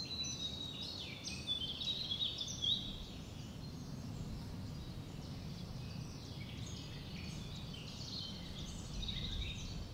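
Small birds chirping in quick short phrases, busiest in the first three seconds and again near the end, over a faint steady low rumble.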